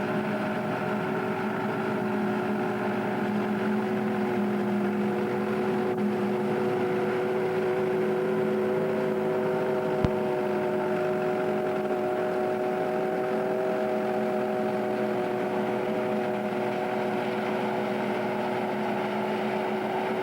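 Self-propelled forage harvester running steadily while cutting maize: a constant droning hum with steady whining tones. A single sharp click about ten seconds in.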